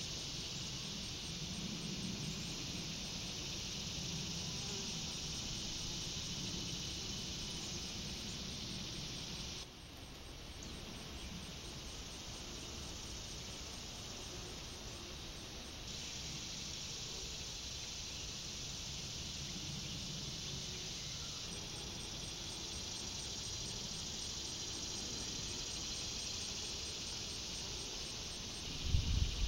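Steady high-pitched chorus of meadow insects, cricket-like, with a faint regular ticking pulse above it. It dips briefly about ten seconds in, and a few low thumps come near the end.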